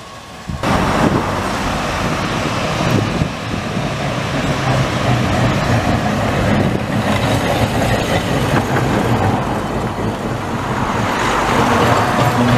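Vintage electric tramcar running close past on street rails: a steady rumble of wheels on the track with a low motor hum and scattered knocks. It starts abruptly about half a second in.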